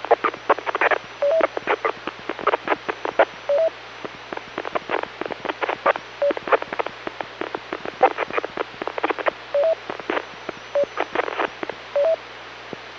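2 m FM transceiver receiving a weak repeater signal: steady hiss broken by dense, irregular crackling clicks and pops, with several short beeps mixed in. This is a mobile signal breaking up at the edge of the repeater's range, picket fencing as the car moves.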